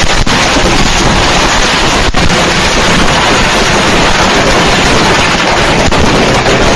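Fireworks going off at close range all together, a mishap: a loud, continuous hiss and crackle with a few sharp bangs, the loudest about two seconds in.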